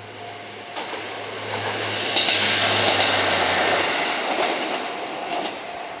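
A KiHa 11 diesel railcar passing over the level crossing: its running noise builds to a peak about two to three seconds in and fades, with a few wheel clacks over the rail joints. The crossing's warning bell keeps ringing throughout.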